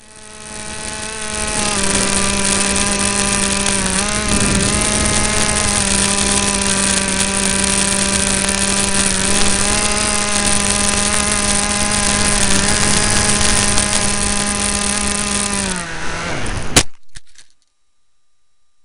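Electric motor and propeller of a Harbor Freight Wild Hawk foam RC airplane, heard up close from a camera on board: a loud, steady buzzing whine with a few slight dips, falling in pitch near the end, then a single sharp knock as the plane hits the ground and the motor sound stops.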